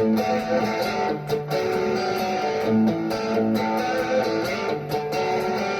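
Peavey Vandenberg electric guitar on its single-coil pickup, run through a Carl Martin Panama overdrive into a Blackstar HT5 amp, playing a distorted riff of sustained chords and notes with sharp picked attacks.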